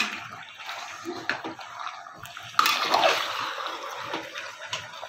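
A spatula stirring raw marinated mutton and sliced onions in an open aluminium pressure cooker. The wet mass slides and squishes, the utensil scrapes and knocks against the pot, and there is a louder stir about two and a half seconds in.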